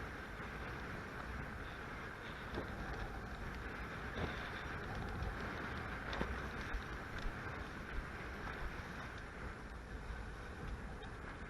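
Steady rush of wind and water from a Hobie Cat 16 catamaran sailing in strong wind, with wind buffeting the microphone and a few brief knocks.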